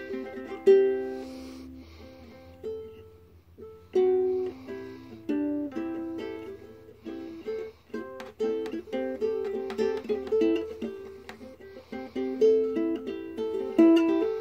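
Ukulele played solo, a run of plucked notes and strummed chords, with a brief pause about three seconds in before the playing picks up again.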